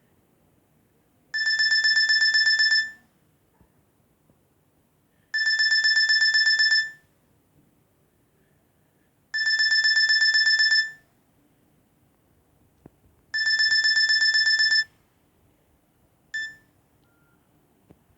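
Nokia 6300 mobile phone ringtone: a single high electronic tone trilling rapidly, in bursts of about a second and a half that repeat every four seconds. There are four bursts, then a brief blip near the end as the tone is cut off.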